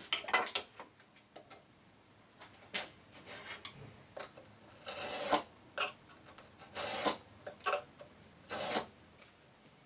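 A steel edge scoring a hardwood board along a marked cut line, a dozen or so short scratchy strokes at irregular intervals.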